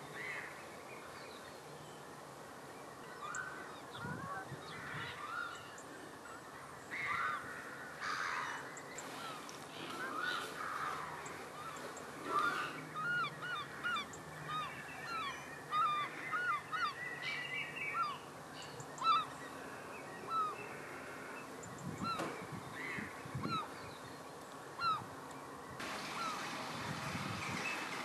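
A flock of birds calling: many short, repeated calls, thickest through the middle stretch.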